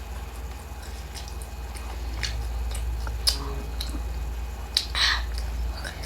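Close-miked chewing: scattered wet mouth clicks and smacks, with a short breathy puff about five seconds in, over a steady low hum.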